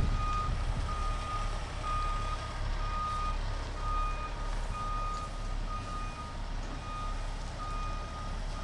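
A vehicle's reversing alarm beeps steadily, an even run of single-pitch beeps at roughly three every two seconds, over a low rumble.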